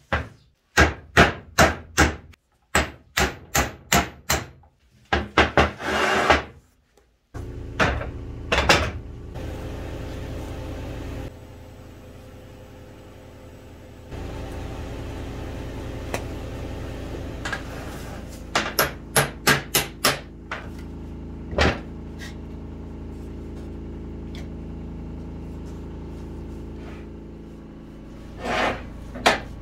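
Hammer blows: about a dozen sharp strikes in the first seven seconds, and another quick run of about six near two-thirds of the way through. From about a quarter of the way in, a steady hum runs under them.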